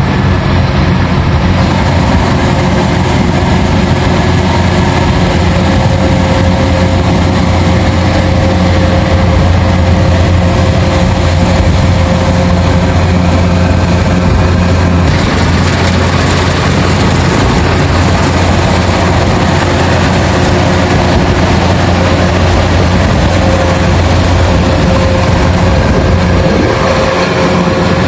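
Rice combine harvester running steadily under load, its heavy engine and machinery making a loud, continuous mechanical noise with a steady hum.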